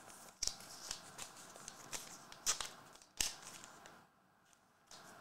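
Faint rustling and a few sharp clicks of trading cards being handled and squared into a stack.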